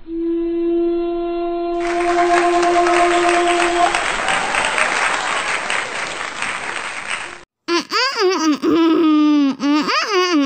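Intro sound effects: a steady electronic tone, then a loud hiss of applause-like noise with laughter. After a brief cut about three-quarters through, a fast warbling tone sweeps up and down repeatedly, like a signal-glitch effect.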